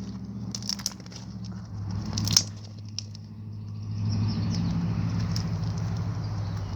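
Thick glossy slime with foam chunks being squeezed and pressed by hand, giving scattered clicks and bubble pops, one louder pop a couple of seconds in, then a steadier crackling.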